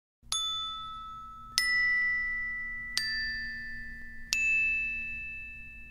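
Intro music of four bell-like chime notes, struck about a second and a half apart at different pitches, each ringing on and slowly fading.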